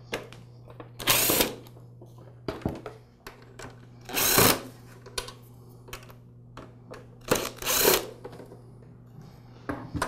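Cordless screwdriver running in short bursts, about half a second each, four times, as it spins out the screws holding the espresso maker's front console. Small clicks and taps from the bit and the loosened screws come between the bursts.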